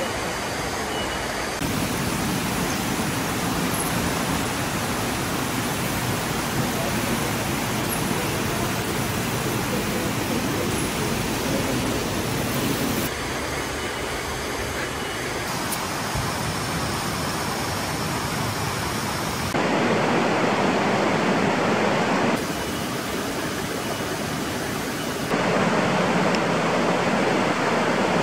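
Steady rushing of a waterfall and stream, an even noise that changes abruptly in level and tone several times.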